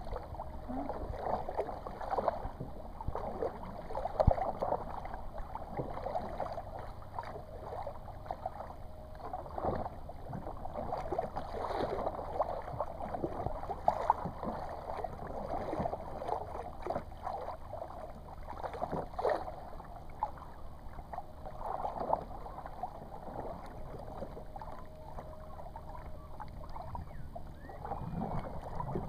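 Kayak paddles dipping and splashing in calm sea water, stroke after stroke at an uneven pace, with a sharp knock about four seconds in.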